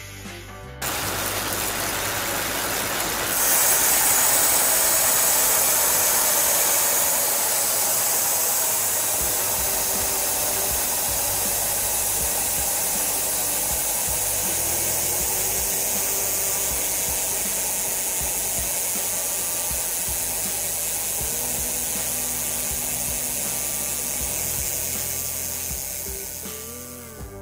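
Shimano XTR FH-M975 rear hub's freehub pawls ticking as the rear wheel spins freely, a fast, even clicking that blurs into a buzz. It gets louder a few seconds in and eases slightly near the end.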